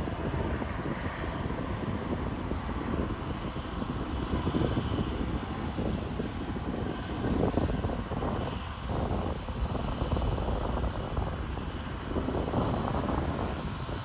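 Jet aircraft noise at an airport: a steady rumble that swells unevenly, with a faint high whine over it.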